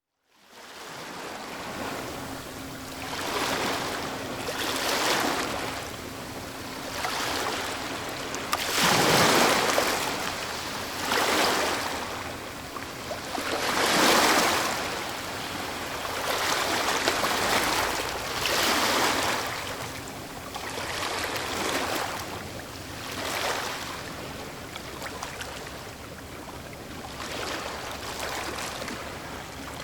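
Ocean waves breaking and washing up on a shore, in a steady wash of surf that swells with each wave every few seconds, the biggest breaks about nine and fourteen seconds in.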